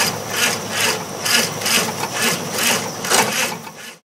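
Stripped-down Willys CJ-3A Jeep running, a rasping noise pulsing about twice a second over a steady low hum. It cuts off suddenly near the end.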